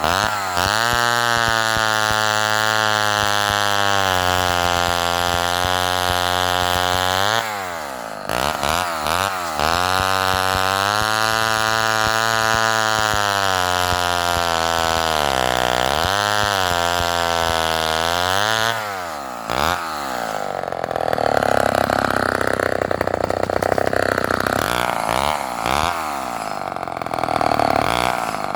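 Homelite XL-12 two-stroke chainsaw with a 20-inch bow bar running at high revs, its pitch falling back briefly twice, about 8 and 19 seconds in. In the last third it runs rougher and noisier, with less steady pitch.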